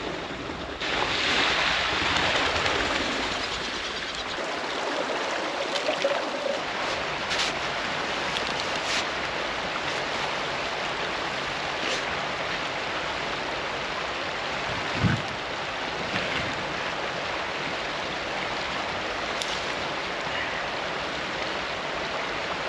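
River water rushing steadily, with a few faint clicks and a single low thump about fifteen seconds in.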